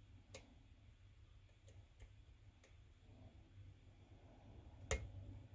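Lock pick and tension wrench working the pins of a pin-tumbler challenge lock: a few faint scattered clicks, then one louder click near the end.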